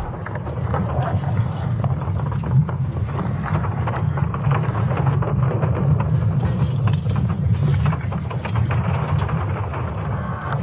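Sonification of Earth's magnetic field made from ESA Swarm satellite data: a deep, steady rumble with scattered crackles throughout.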